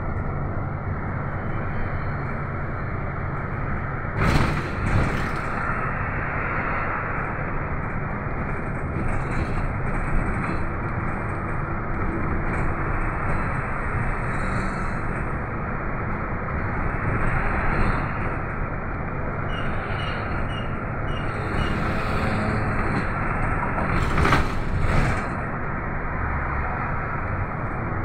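Inside a moving city bus: its engine running and tyre and road noise, steady throughout, with a sharp knock about 4 seconds in and another near the end.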